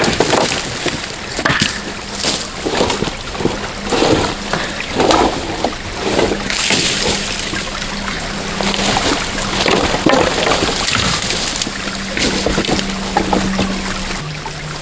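Irregular splashing and sloshing of creek water as people wade and move through it.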